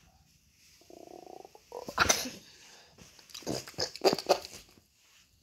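A cat makes a short, pulsing, buzzing call about a second in, followed by several louder, sharp noises.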